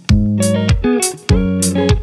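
Background music: plucked guitar over a steady beat.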